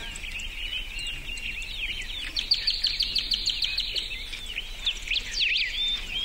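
Birdsong: several small birds chirping and whistling together, with a fast, even trill starting a little past two seconds in and lasting about two seconds.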